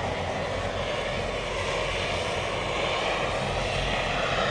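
A torch flame burning steadily with an even rushing noise, heating the end of a rubber hose so that it expands to slide over a coupler's barb.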